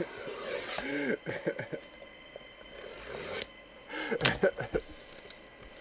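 Hands rubbing and sliding over a cardboard jersey box as its lid is worked open, with a few sharp taps and knocks on the cardboard, the loudest a little over four seconds in.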